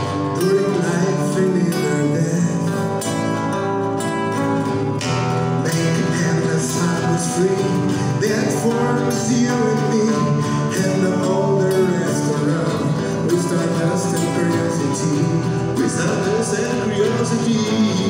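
Two acoustic guitars strumming chords while a man sings a song.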